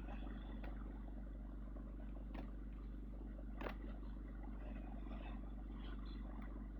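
Steady low vehicle rumble, as from inside a moving van, with scattered faint clicks and one sharper click about three and a half seconds in.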